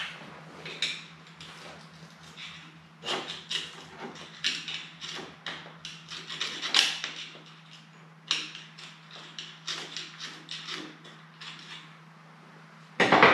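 Metal hand tool scraping and clicking against the motorcycle's chain sprocket in irregular strokes, digging out thick caked grime so the drive chain can slide off; one sharper clack near the end.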